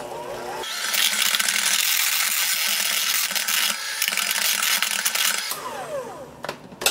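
Electric hand mixer running, its wire beaters churning mashed potatoes in a stainless steel stock pot. The motor starts about a second in and runs for about five seconds, then cuts off and winds down with a falling whine, followed by a couple of sharp clicks.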